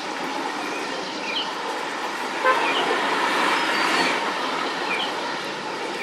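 City street traffic noise with a vehicle passing, its sound swelling in the middle. A short horn toot comes about two and a half seconds in. Small birds give brief chirps now and then over the traffic.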